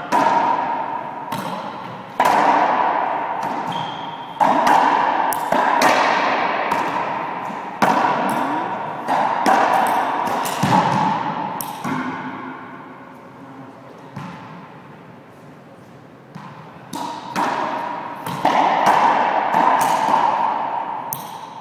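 Racquetball rally: a string of sharp cracks as the racquet strikes the ball and the ball hits the walls and floor. Each crack rings out in the court's long, hollow echo, with a lull of a few seconds past the middle.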